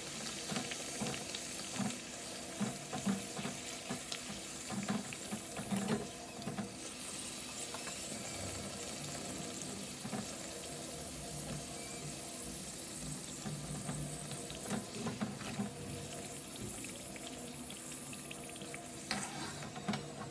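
Bhatura deep-frying in hot oil in a kadhai: a steady sizzle and bubbling. Short clicks and scrapes of a steel slotted spoon against the pan come through, most often in the first few seconds, as the bread is pressed down and turned.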